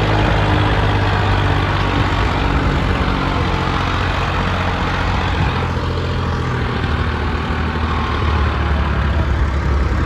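Heavy diesel engine running steadily under a loud, even hiss.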